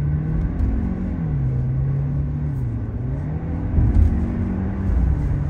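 Hyundai Verna 1.5-litre turbo-petrol engine accelerating through a 0–100 km/h run in Eco mode, over steady road rumble. Its pitch drops about a second in, climbs, then drops again just before four seconds, at the gear changes, where a brief louder thump comes.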